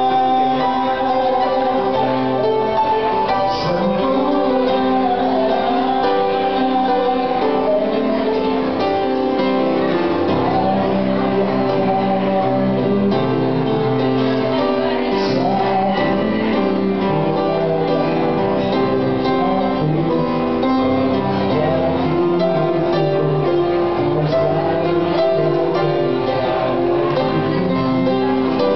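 A man singing an Indonesian pop song live into a microphone over an instrumental accompaniment in which a guitar is heard. The singing and accompaniment run on without a break.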